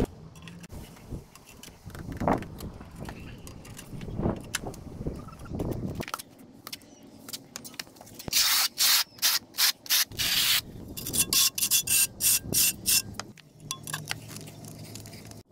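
Steel notched trowel scraping tile adhesive across a concrete slab: a long scraping pass about halfway in, then a quick run of short combing strokes. A few soft knocks before it.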